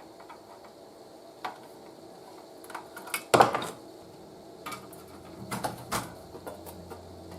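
Knocks and clunks of an old Crosley Model 58 Buddy Boy radio being handled as its bottom is taken off: scattered light clicks, one loud clunk with a short ring a little over three seconds in, and a few more knocks around six seconds.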